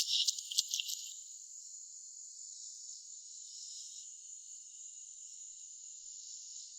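Crickets chirring steadily, with a few louder pulses in the first second.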